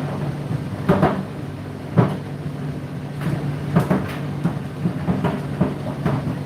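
Condenser tumble dryer running: a steady motor and drum hum, with laundry thudding inside the turning drum about once a second.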